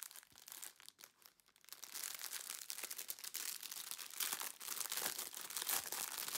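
Clear plastic sleeve of small bagged packets of round diamond-painting drills crinkling and crackling as it is handled, faint at first and continuous from about two seconds in.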